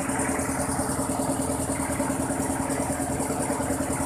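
Rice milling machine running steadily, its engine and mill giving a constant hum with a fast, even pulsing.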